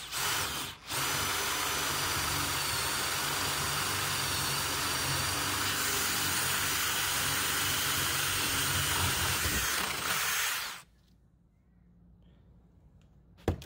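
Cordless drill boring a spade bit through a wooden 2x4: a short burst, a brief pause, then about ten seconds of steady drilling that stops suddenly. A single sharp click near the end.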